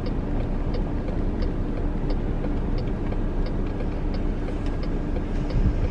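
Steady road and engine noise inside a moving minivan's cabin, with the turn-signal indicator ticking evenly about three times every two seconds.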